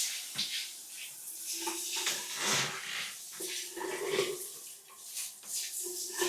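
Water running and draining down a freshly unclogged shower drain, splashing unevenly in short surges with brief gurgling tones.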